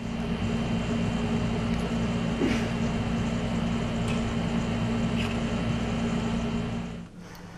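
Steady mechanical hum with a constant low tone, stopping about seven seconds in.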